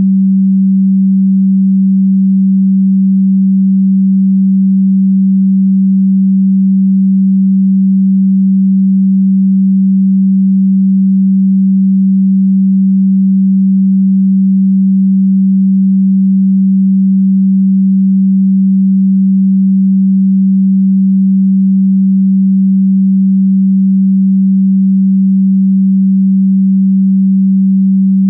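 A loud, steady, low-pitched pure electronic tone, held at one pitch without any change.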